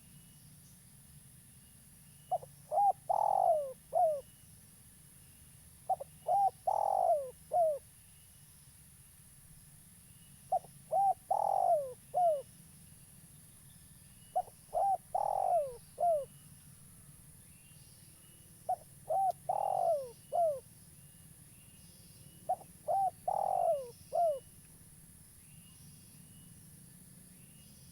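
Spotted dove (tekukur) cooing its song: six phrases about four seconds apart. Each phrase is a couple of short coos, a longer and louder coo, then a short falling coo.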